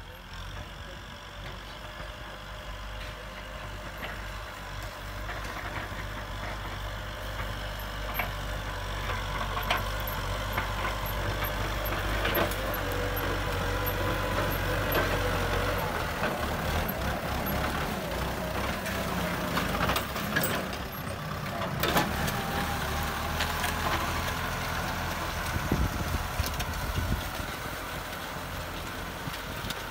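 Kubota M6040 tractor's diesel engine running under load while it ploughs, growing louder over the first half as it approaches. There are occasional sharp clanks in the second half.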